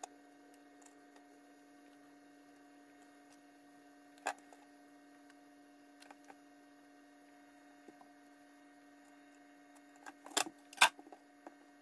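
Food-prep handling on a plastic cutting board: a few light knocks and ticks as raw bacon strips are laid out and a silicone basting brush is handled, the loudest a pair of knocks near the end. A faint steady hum runs underneath.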